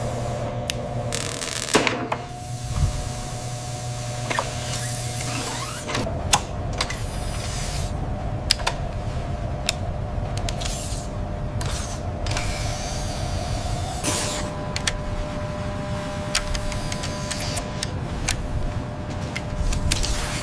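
Whirring of small motors in a robotic mechanism: a steady hum under irregular sharp clicks and ticks, with a few brief hissing sweeps.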